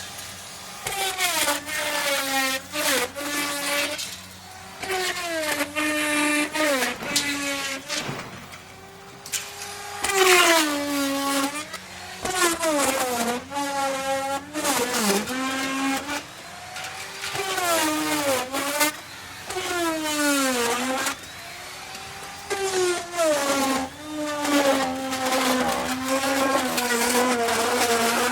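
Electric wood router cutting wood in repeated passes: the high motor whine drops in pitch as the bit bites into the wood and climbs back as it frees up, with quieter running between cuts.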